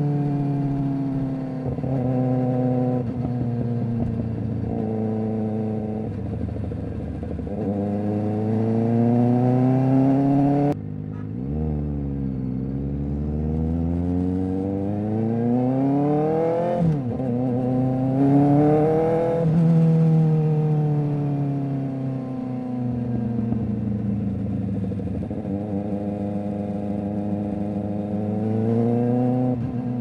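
Kawasaki Ninja ZX-4RR's inline-four engine through an SC Project exhaust, ridden through the gears. The pitch climbs and falls repeatedly, stepping at each gear change, and the sound falls away abruptly about eleven seconds in before climbing again.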